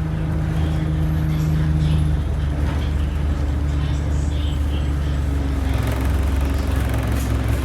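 Engine of the turbocharged vehicle running steadily, its low note shifting slightly about two seconds in.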